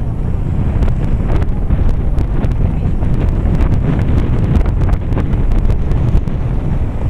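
Wind buffeting the microphone: a steady, loud low rumble, with scattered faint clicks through it.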